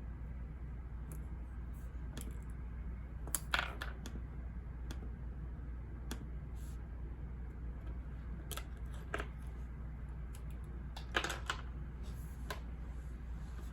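Steady low white-noise hum, with a few scattered light clicks and short rustles of small objects being handled, the two loudest about three and a half seconds in and near eleven seconds.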